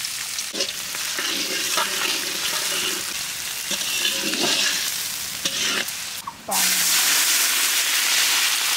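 Chopped onions sizzling in hot oil in a large metal karahi, with a metal spatula scraping the pan as they are stirred. After a cut near the end, water poured into the hot pan sets off a louder, steady hiss.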